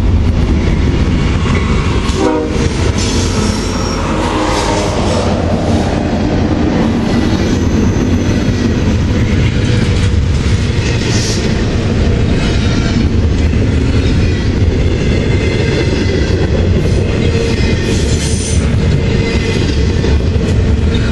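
A CSX freight train led by a GE ES44DC diesel-electric locomotive passes close by: the locomotive rumbles past, followed by the steady rumble and clatter of double-stack container cars. A short horn note sounds about two seconds in, and high wheel squeals come and go.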